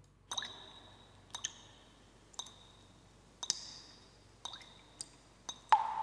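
Sound-effect recording of slow, small water drips falling into water: single ringing plinks about once a second, coming closer together near the end, the last a deeper plop whose tone rings on.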